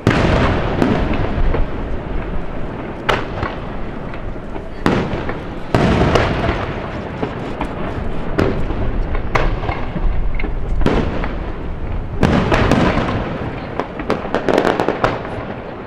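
Aerial fireworks shells bursting one after another, each a loud boom trailing off into crackle and rumble. Near the end comes a quick rapid-fire cluster of bangs.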